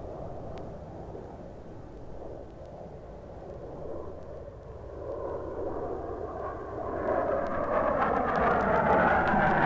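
Aircraft engine noise drawing nearer: a rushing drone that grows steadily louder through the second half. It is played from a sound-effects LP, with a few faint record clicks.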